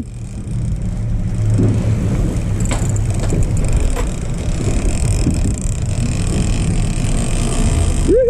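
Outboard motor running as the boat moves, a steady low rumble mixed with water washing past the hull. A few faint clicks sound about three and four seconds in.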